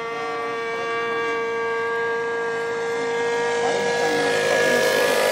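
Radio-controlled model float plane's engine in flight, a high, steady whine that holds its pitch and grows louder toward the end.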